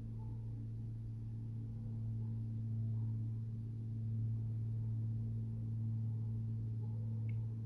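A steady low hum with a fainter overtone, swelling slightly midway, and a brief faint chirp near the end.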